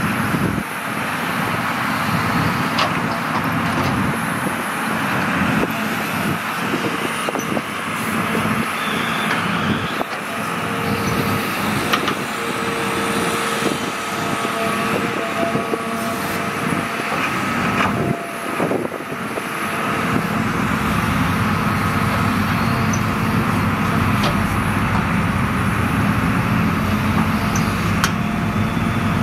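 Hitachi Zaxis 350 excavator's diesel engine running with a steady whine while it dumps soil into a dump truck and digs, with scattered clunks. About two-thirds of the way in, the engine note grows heavier as it digs.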